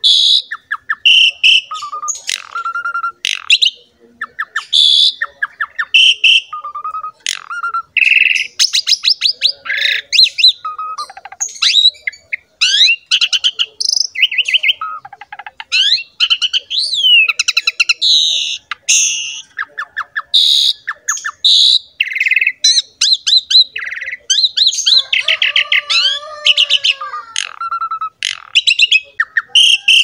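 Asian pied starling singing a long, varied song without pause: repeated short whistled notes mixed with harsh chattering, rapid rattling trills and sliding whistles.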